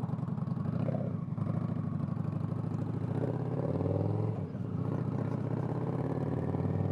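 Motorcycle V-twin engine running under way. Its note rises, then dips briefly about halfway in before carrying on.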